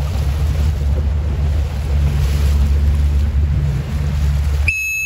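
Low, steady rumble of wind buffeting the microphone over a boat's motor while under way, with a wash of water. Near the end the rumble cuts off abruptly and a short high-pitched beep sounds.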